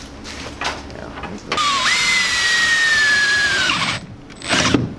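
Cordless drill spinning up and drilling into the pickup's bed sheet metal for about two seconds, its whine sagging slightly in pitch as the bit cuts, then stopping.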